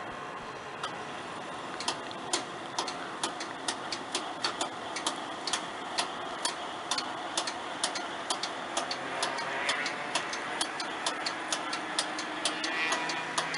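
Railway level-crossing warning bell striking sharply about twice a second, starting about two seconds in, as the barriers lift and the crossing reopens, over a steady background noise.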